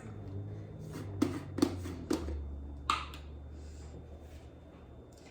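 Pepper being seasoned into a bowl of dressing: a few short clicks and taps, spread over about two seconds, over a faint low hum.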